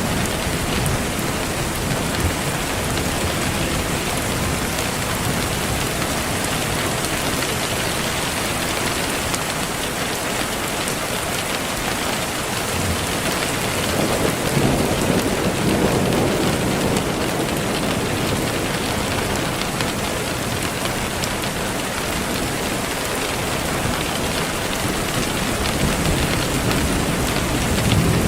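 Steady, even rain noise, with a low rumble of distant thunder swelling about halfway through and again near the end.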